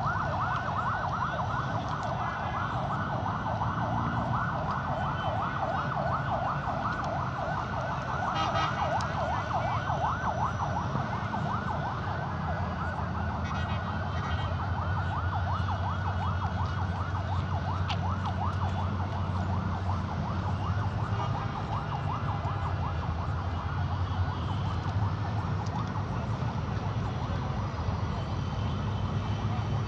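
A warbling siren sounds without a break, its pitch sweeping up and down several times a second. Under it runs the low, steady hum of a diesel locomotive engine, growing a little stronger past the middle.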